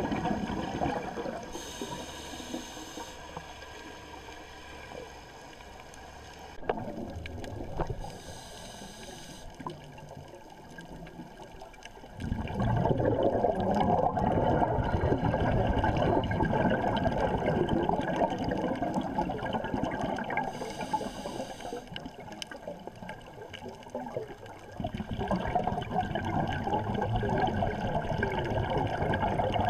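Underwater sound of scuba diving: a scuba diver's exhaled air bubbles rumbling and gurgling, heard through the camera housing, loud from about twelve seconds in and again near the end. The quieter first part has a few short hisses, typical of a regulator on inhalation.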